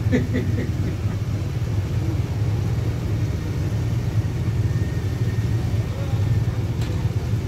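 Police motorcycles and cars idling, a steady low engine rumble.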